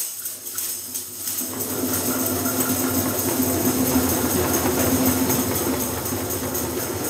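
A group shaking homemade bottle-and-can shakers together, with hand drums, building from a few scattered shakes into a dense, continuous rattle about a second and a half in.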